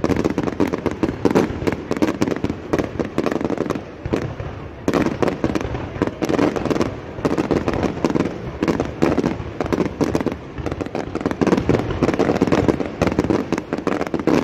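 Fireworks going off: a dense, rapid run of bangs and crackles, easing briefly about four seconds in.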